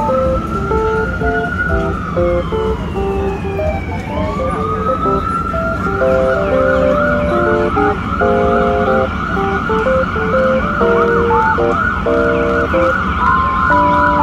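Emergency vehicle siren wailing, its pitch rising and falling slowly, then switching about six seconds in to a fast yelp that carries on, over a low rumble of city traffic. A light keyboard melody of background music plays throughout.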